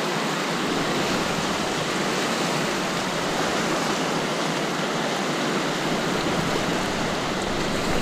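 Whitewater rapids rushing around a canoe: a steady wash of churning river water. A deeper rumble joins in about six seconds in.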